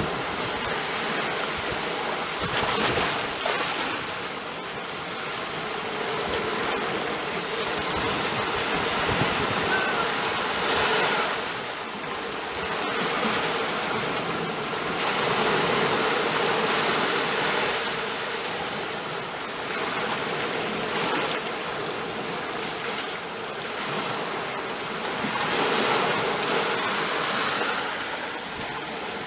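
Sea waves washing in and out: a steady rush of water that swells and ebbs every few seconds.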